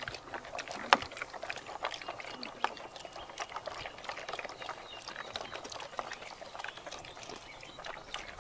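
A golden retriever eating dry food from a shallow metal tray: irregular crunching and clinks of food and teeth against the tray, several a second, with one louder click about a second in.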